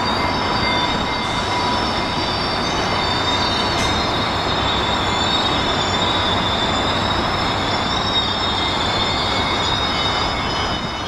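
Train wheels squealing on the rails, several high, wavering squeal tones held over a steady rumble of rolling stock.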